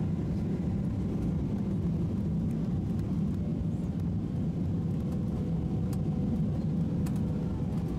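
Steady low rumble of cabin noise inside a Boeing 777-300ER airliner on final approach: engines and airflow heard from a window seat over the wing.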